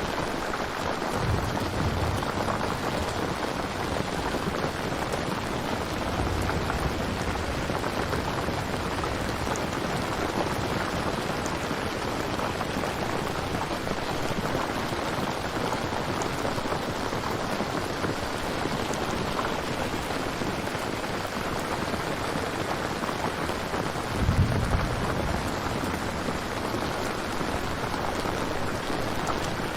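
Steady rain falling, a continuous recorded rain ambience. A few low rumbles sound under it, the loudest a brief swell about 24 seconds in.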